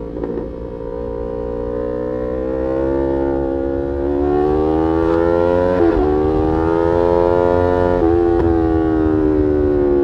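Yamaha R3's parallel-twin engine through an Arrow aftermarket exhaust, accelerating with its note climbing in pitch, an upshift about six seconds in and another brief break around eight seconds, then holding steady, with low wind rush beneath.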